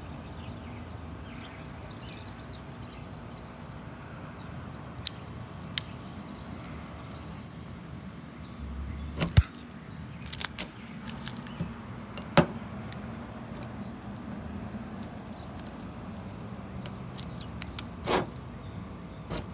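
Long-handled scraper blade pushed along a bus's painted steel side, peeling off vinyl decal lettering: quiet scraping broken by sharp clicks and knocks of the blade and handle on the metal, the loudest about nine and twelve seconds in. A steady low hum runs underneath.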